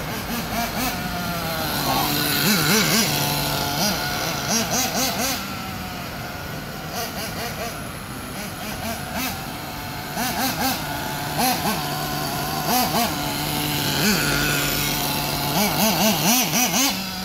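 Small nitro engine of a VRX-2 RC buggy idling, with repeated short throttle blips that make the pitch rise and fall. The engine is being broken in on gentle throttle.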